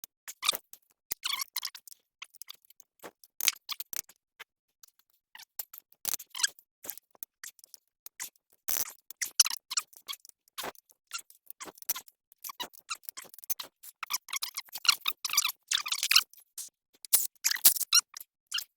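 Socket ratchet clicking in quick runs, with scattered metallic clicks and clinks of tools, as the cylinder head bolts are loosened a little at a time in a cross pattern.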